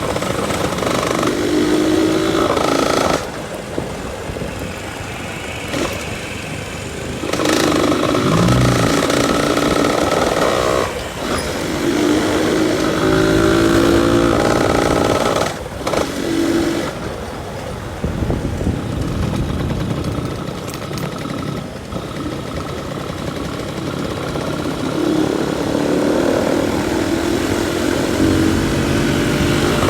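Yamaha F1ZR's single-cylinder two-stroke engine running and being revved on light throttle, rising and falling every few seconds, with a rough snoring exhaust note.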